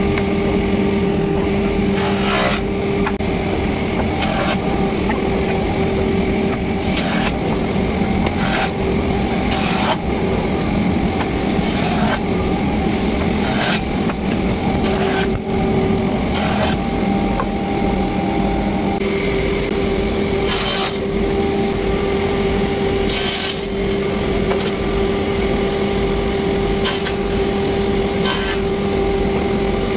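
Sliding table panel saw running steadily with a constant hum, while wooden boards give short sharp knocks and clatters on the table about a dozen times.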